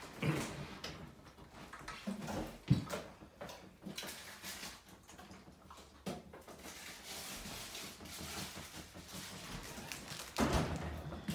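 Siberian husky eating from a stainless-steel dog bowl: irregular clinks and knocks of food and muzzle against the bowl, with a sharp knock a little under three seconds in and a louder cluster near the end.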